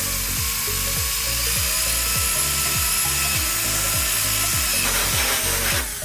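Power drill boring through the thin sheet metal of a cable tray: a steady, loud grinding whine with a few high ringing tones in it, which stops near the end.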